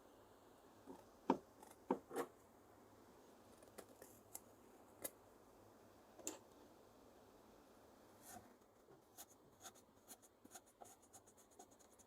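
Scattered sharp clicks and snaps of small parts being handled and worked by hand, the loudest a little over a second in, then a quicker run of light ticks in the last few seconds.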